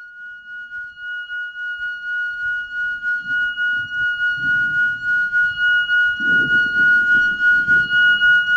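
A stone rubbed round against granite, grinding low and unevenly, with a sustained high ringing tone over it that pulses about three times a second and grows steadily louder.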